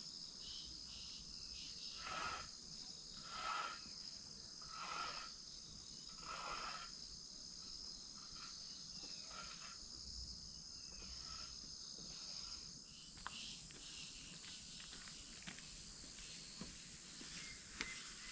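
A steady, high-pitched insect chorus. Four soft swells of sound come in the first half, about a second and a half apart.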